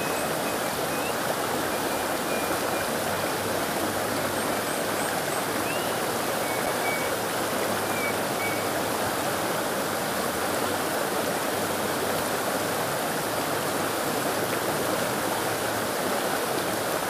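Shallow river water flowing in a steady, even rush, with a few faint high chirps over it.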